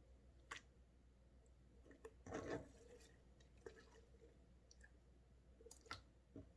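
Faint wet clicks and squelches of sticky slime: a few single clicks, with a longer squishy cluster about two seconds in.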